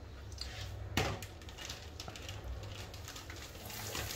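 A metal fork clinking against a plate while scooping up sticky rice: one sharp clink about a second in, then faint light clicks, over a low steady hum.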